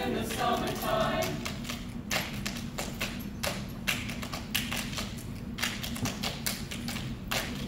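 A choir's singing breaks off about a second in, followed by a run of irregular sharp taps or clicks with no singing.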